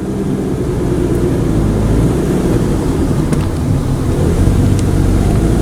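Car running along the road: a steady low engine and road rumble.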